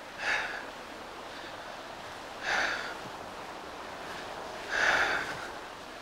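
A person breathing hard: three loud, breathy exhalations about two seconds apart over a steady hiss.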